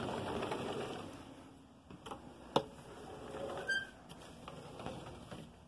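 Sliding glass patio door rolling open along its track with a rough rumble, followed about two and a half seconds in by a sharp click and a brief high squeak.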